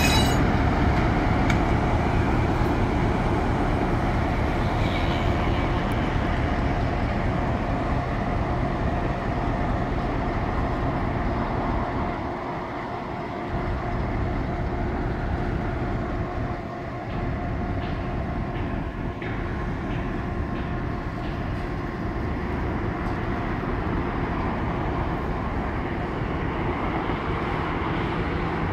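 EMD G-16 diesel shunting locomotive with a two-stroke V16 engine, running as it slowly pushes a line of tank wagons away along the track, with wheels rumbling on the rails. The sound fades gradually as the train moves off.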